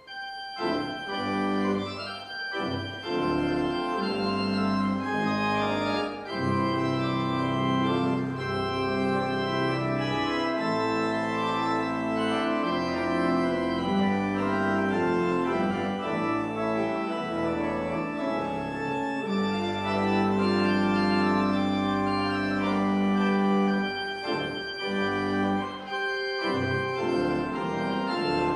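Pipe organ playing a slow piece in sustained, held chords, coming in abruptly at the start.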